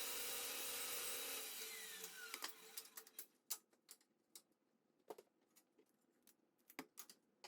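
Power saw running, then switched off about a second and a half in, its whine falling as the blade spins down. Scattered sharp knocks and clicks follow as the cut wood pieces are handled.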